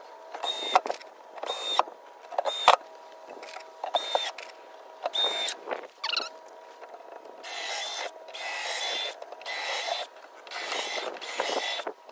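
Cordless drill driving wood screws into the plank wall of a wooden enclosure: the motor whines in a series of short trigger bursts, then from about halfway in longer runs of just under a second each as screws are sunk.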